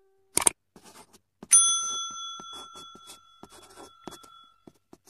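Animated subscribe-button sound effects: a short click, then a single bright bell ding about a second and a half in that rings out and fades over about two seconds, with faint scratchy pen-drawing strokes throughout.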